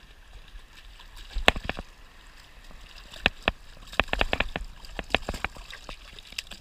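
Hooked bluefish thrashing at the surface beside the angler, throwing a run of sharp slaps and splashes, busiest about four seconds in, over the soft wash of the surf.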